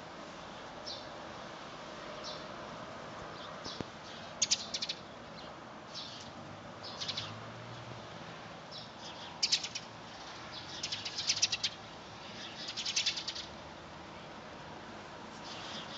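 Small birds chirping in short bursts of rapid, high, clicking notes, repeated several times, over a steady background hiss.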